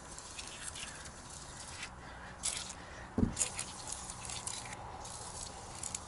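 Short spurts of aerosol rubber seal conditioner sprayed through a straw nozzle onto the rubber seal of an RV roof vent fan, heard as brief hisses several times, with handling rustles and a soft thump about three seconds in.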